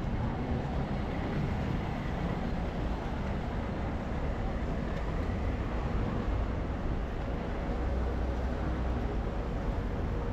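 Busy city street ambience: a steady rumble of road traffic with a low engine drone.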